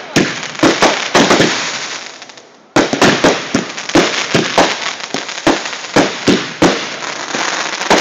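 Fireworks going off in a rapid barrage of bangs with crackling, several reports a second. They die away about two seconds in, then start up again suddenly and keep going.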